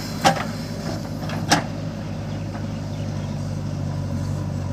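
Diesel engine running steadily at idle, with two sharp knocks a little over a second apart near the start.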